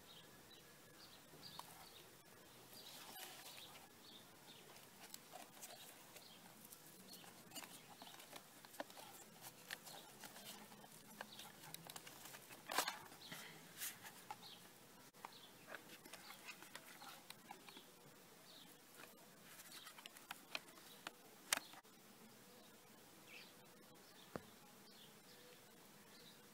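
Faint handling noise from a plastic portable cassette player and its carrying case being turned in the hands: scattered small clicks and rustles, with two sharper clicks, one about halfway through and one later on.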